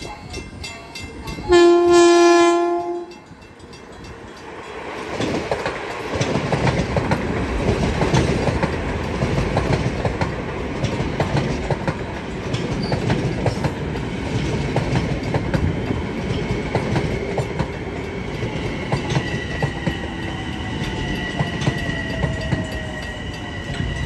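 Long Island Rail Road train sounding its horn once for about a second and a half, then rumbling past with its wheels clattering on the rails. Steady high whining tones join the rumble near the end.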